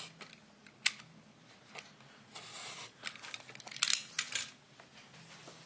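Knife cutting a small slot through picture-framing backing board: short scraping strokes mixed with several sharp clicks and taps.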